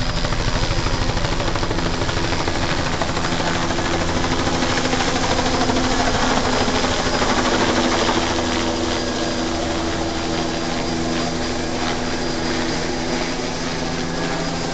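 Light helicopter flying low overhead: a steady rotor and engine drone, loudest about halfway through and easing a little after.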